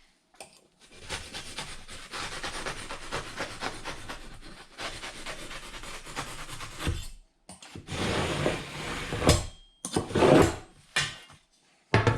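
A sheet of ductwork material being cut by hand along a marked line: a steady scraping rasp for several seconds, then a brief pause and a few shorter, louder cutting strokes.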